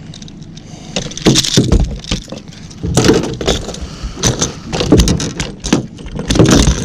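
A small northern pike thrashing in the boat, knocking about and rattling the lure's hooks in a run of irregular sharp knocks and metallic jangles.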